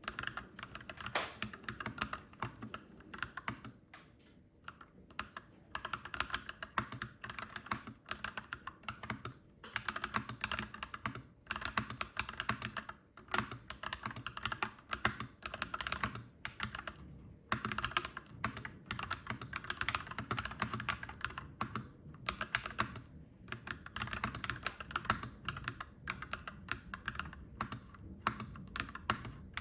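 Clacky mechanical keyboard being typed on in fast, continuous runs of keystrokes, broken by a few short pauses.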